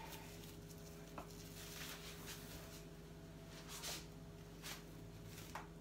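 Cling film being handled and laid over a tray of risen dough buns: a few soft, brief rustles and a couple of small clicks over a faint steady hum.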